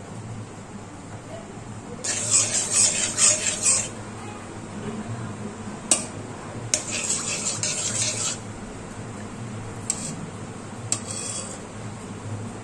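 Metal spatula scraping and stirring in a stainless steel wok as butter melts into oil. There are two bouts of scraping, a second or two each, with a few sharp taps against the pan between and after them.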